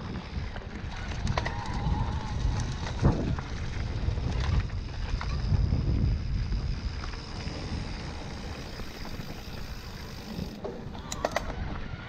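Electric mountain bike ridden over a rough trail: wind buffeting the microphone as a steady low rumble, with scattered knocks and rattles from the bike over the ground.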